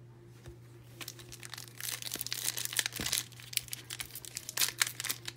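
Plastic wrapper on trading-card packaging crinkling and tearing as it is ripped open, starting about a second in, over a faint steady low hum.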